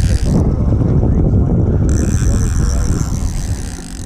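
Wind buffeting the microphone on a small fishing boat in choppy water, over the steady run of the outboard motor.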